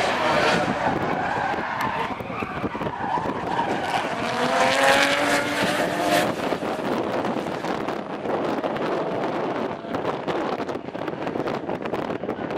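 Two drift cars sliding in tandem, their tyres screeching and their engines revving hard. One engine's pitch climbs steadily from about four seconds in, then drops away around six seconds.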